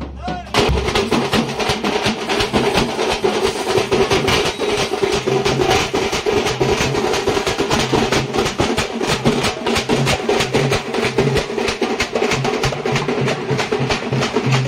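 A street drum band playing: large bass drums on stands beaten with sticks under fast, dense strokes on smaller drums, in a continuous rapid rhythm with low booms. The drumming dips briefly at the very start and comes back in about half a second in.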